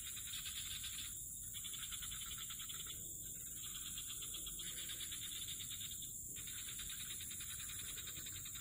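Swamp insects and frogs calling together: a steady high-pitched buzz under a rapid pulsing trill that breaks off briefly three times.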